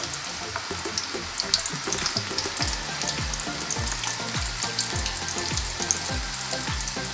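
Okra pakodas (okra pieces in gram-flour batter) deep-frying in hot oil in a steel kadai: a steady sizzle with many small crackles as the batter bubbles.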